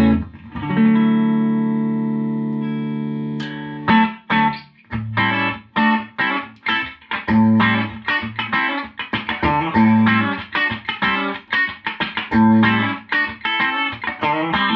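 Electric guitar played clean through a 1964 Gibson GA77 RVT Vanguard tube amp: a chord rings out for about three seconds, then a steady picked pattern of notes and chords follows.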